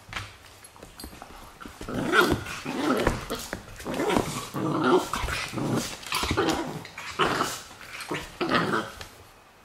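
Two Dobermanns, a puppy and an adult, growling at each other as they tussle over a bone, in a run of loud, rough bursts that begins about two seconds in and stops shortly before the end.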